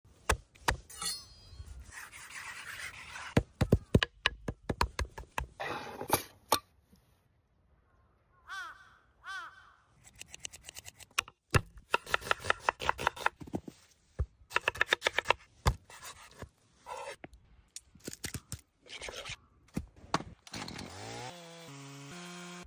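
A run of sharp knife chops, taps and scrapes on a wooden cutting board, some in quick rhythmic series. Near the end a Husqvarna chainsaw runs, its engine note stepping down in pitch.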